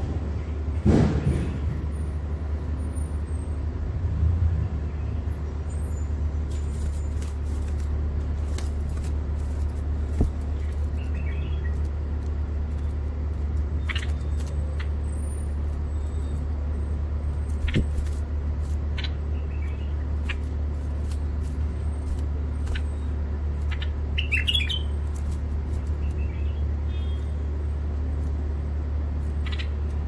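Caged white-eared bulbul giving a few short, scattered chirps over a steady low hum.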